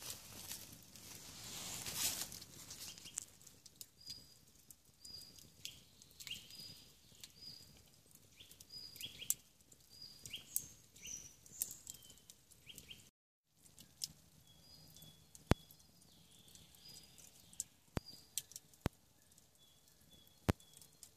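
Faint campfire with wood crackling and giving occasional sharp single pops, while small birds chirp in short repeated calls. The sound cuts out for a moment about two-thirds through.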